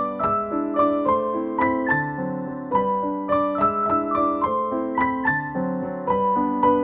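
Background piano music: a melody of evenly paced struck notes over sustained lower chords.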